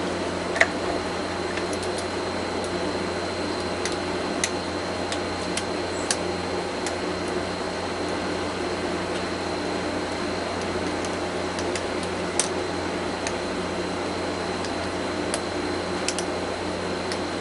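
Lock pick and tension wrench working the pin tumblers of a Master Lock 930 padlock: a few faint, scattered clicks over a steady background hum.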